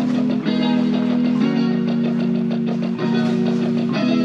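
Background music led by guitar, with sustained chords that change about every second and a half over an even beat.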